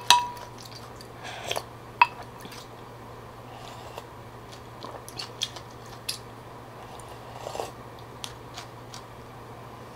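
Utensils clink against a ceramic bowl, sharply at the start and again about two seconds in, then soft sipping and swallowing as phở broth is drunk straight from the lifted bowl.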